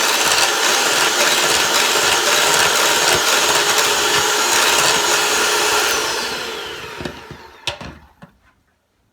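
Electric mixer whisking eggs and sugar at high speed, a steady motor noise with a faint high whine. About six seconds in it slows and winds down to a stop, followed by a single click.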